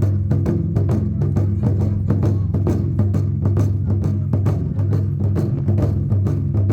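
Japanese taiko drums beaten in a fast, steady rhythm, about five strokes a second, with the drums' low ringing sustained underneath.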